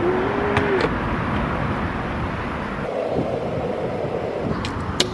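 Steady vehicle and traffic noise, with a faint hum that stops just under a second in and another steady sound joining about three seconds in.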